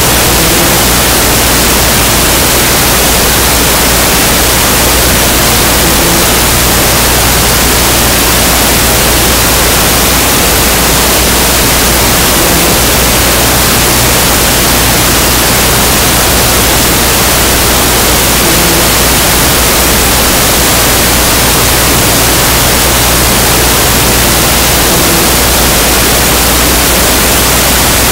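Loud, steady hiss of static covering the whole recording, with a low hum beneath it and no game sounds standing out.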